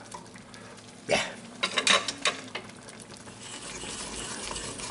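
A wooden spatula stirring and knocking against a pan of simmering hake and prawns in sauce, with several clatters and scrapes between about one and two and a half seconds in. After that the sauce keeps up a steady simmering hiss.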